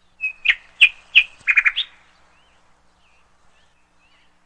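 Bird chirps: a quick run of about eight sharp, high chirps in the first two seconds, then a few faint ones.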